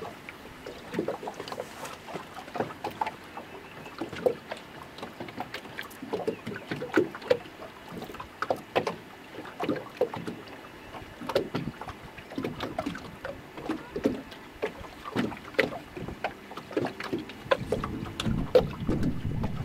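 Small waves lapping and slapping against a boat's hull in irregular short splashes, with a louder low rumble near the end.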